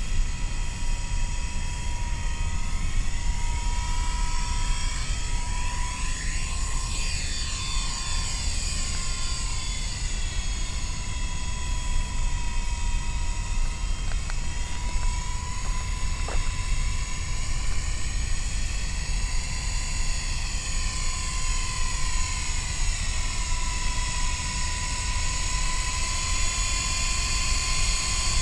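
Electric motor and rotor of an MJX F45 RC helicopter in flight: a steady high whine whose upper tones sweep up and down as it flies around. A low rumble of wind on the microphone runs under it.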